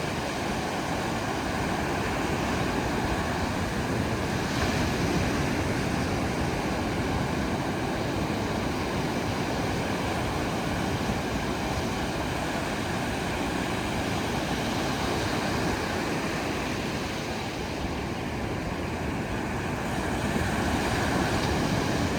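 Steady rushing of ocean surf, an even wash of noise without any distinct breaks or tones.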